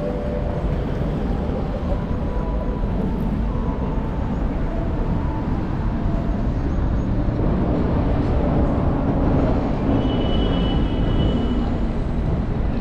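Steady city street traffic noise: a continuous rumble of passing vehicles, with a brief high-pitched tone about ten seconds in.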